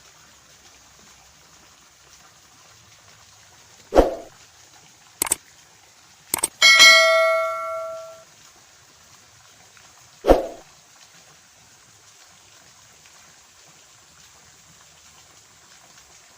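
A few sharp knocks and a metallic clang that rings for about a second and a half before dying away, then one more knock.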